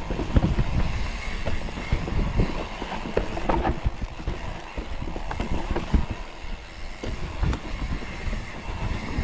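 Mountain bike clattering and rattling over rough ground, with irregular knocks over a low rumble and a burst of louder clatter about three and a half seconds in.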